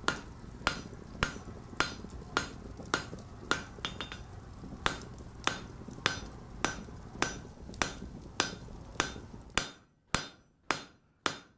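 Blacksmith's hammer striking on an anvil in a steady rhythm, a little under two blows a second, each blow ringing briefly. A steady rush beneath the blows drops away near the end while the hammering goes on.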